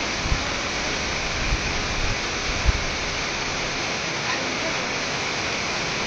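Steady rushing of a waterfall, with a few brief low thumps on the microphone in the first three seconds.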